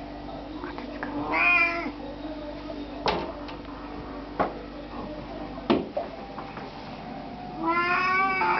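Oriental cat calling twice, a short call about a second in and a longer one near the end, with three sharp clicks in between.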